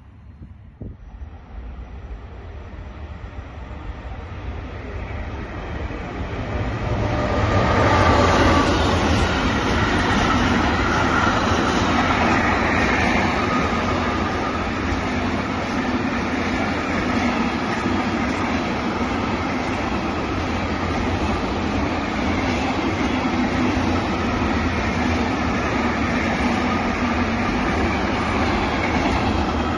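Intermodal freight train of container wagons passing at speed. Its noise builds over the first several seconds as it approaches, then holds as a steady loud rumble of wheels on rails while the wagons go by.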